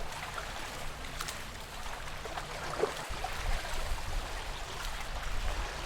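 Calm lake water lapping and trickling, with scattered small splashes over a steady low rumble.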